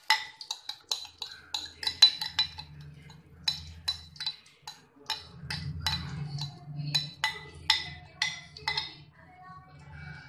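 A spoon repeatedly clinking and scraping against a bowl as ground moong dal paste is scooped out into a pan of hot ghee, about two to three sharp ringing clinks a second, thinning out near the end.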